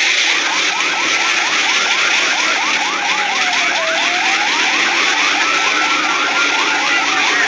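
Fire engine sirens sounding together: one in a fast yelp of about five sweeps a second, the other in a slow wail that falls and rises every few seconds, over a steady hiss.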